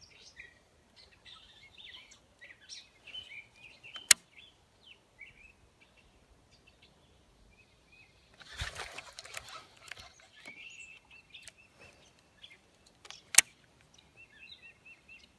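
Songbirds chirping and trilling. Two sharp loud clicks stand out, about four seconds in and again near the end, and a brief rustling burst of noise comes about halfway through.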